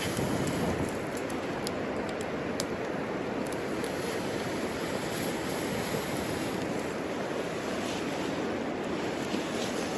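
Wood fire burning in a homemade wood stove: a steady noise with a few faint, sharp crackles.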